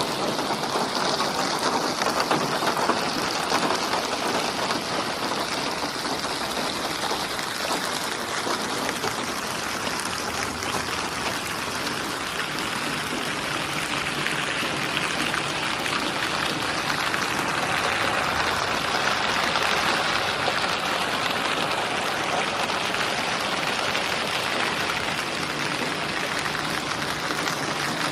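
Steady rain falling on a surface, a dense even hiss of drops.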